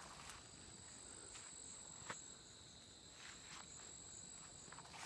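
Faint, steady, high-pitched insect drone from crickets or cicadas in the grass, with a few soft clicks, one a little louder about two seconds in.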